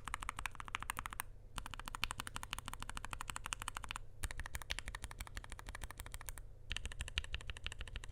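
Fast typing on a NuPhy Air60 V2 low-profile mechanical keyboard with lubed Gateron Low-profile 2.0 Red linear switches: a rapid stream of keystrokes in runs, with short pauses about a second in, at about four seconds and at about six and a half seconds.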